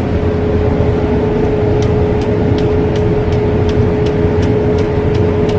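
Electric angle grinder running at steady speed with a steady whine, used to cut a king coconut. From about two seconds in, sharp ticks come about three times a second.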